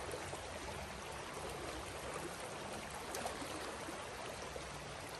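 Shallow creek running steadily over a rippled, rocky riffle: an even rush of moving water.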